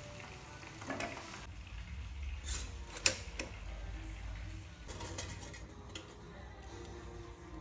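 Kitchen handling sounds: a knife cutting through a crusty baguette on a plastic cutting board, then clicks and knocks from a Sinbo pop-up toaster as bread slices are fed into its slot, the sharpest click about three seconds in.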